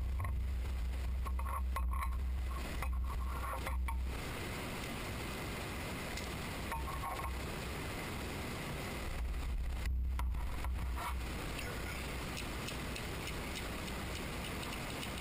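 Faint clinks and scrapes of small metal parts as the Dream Cutter radial compound lathe attachment is taken apart by hand, over a low rumble that is strongest in the first few seconds and again around ten seconds in.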